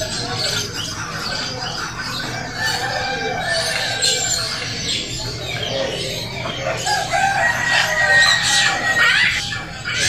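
Many caged birds calling at once, a busy din of overlapping squawks and calls, busiest in the second half.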